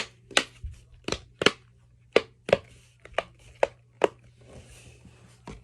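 Simple dimple fidget toys' silicone bubbles being pushed in, a quick series of sharp pops, two or three a second, that stops about four seconds in.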